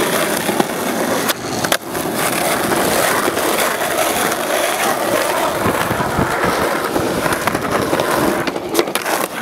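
Skateboard wheels rolling over rough asphalt and concrete, a continuous gritty rumble. A few sharp clacks of the board cut through it about a second in and again near the end.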